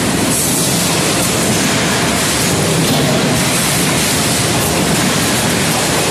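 Steady, loud machinery noise of an automatic forging line with a CNC hydraulic forging hammer running.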